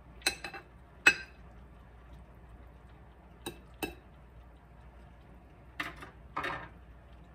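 Metal spatula clinking and scraping against a glass baking dish and a plate while a slice of meatloaf is served: about six separate clinks, the sharpest about a second in, the last two longer scrapes.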